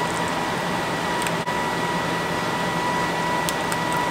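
A steady mechanical hum with a thin high whine, like a fan running, with a few faint clicks.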